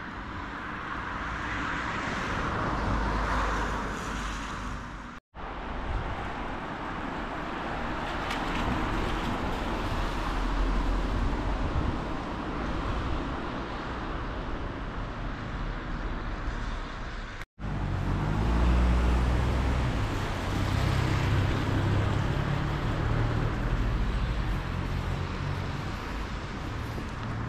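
Road traffic: a steady rumble of passing vehicles with a low engine drone, broken by two abrupt dropouts about five and seventeen seconds in.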